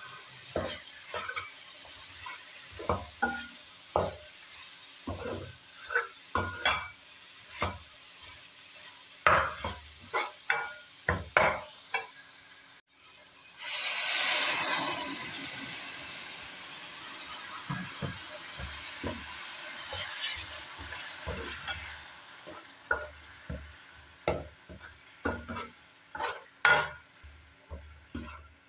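Steel ladle scraping and knocking against a metal pot as minced meat is stirred and fried with garlic-ginger paste, in short repeated strokes. About halfway through a loud spell of sizzling sets in and fades away over several seconds, then the scraping strokes return.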